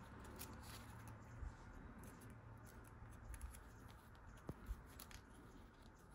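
Near silence, with faint scattered clicks and light ticks of small parts being handled as O-rings are picked out and fitted.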